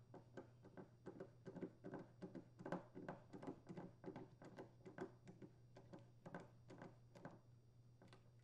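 Screwdriver driving the T25 Torx mounting screw into a chainsaw's plastic recoil starter pulley: a run of faint, irregular clicks and ticks, about three or four a second, that stop near the end.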